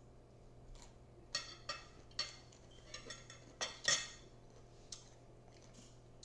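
Eating sounds: a utensil clicking against a dish and the crunch of raw broccoli salad, in about half a dozen short sharp bursts.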